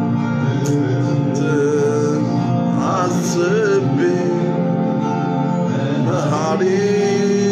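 Ethiopian gospel worship song (mezmur): a male voice singing a wavering melody over sustained instrumental backing.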